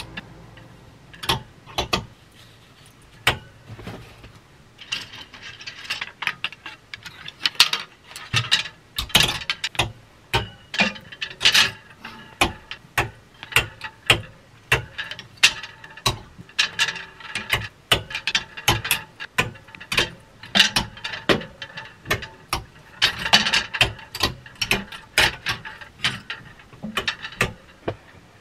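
Wooden clothes hangers clacking against each other and scraping along a wire closet rod as clothes are slid along and rehung: a long run of sharp, irregular clicks and clatters, some in quick clusters.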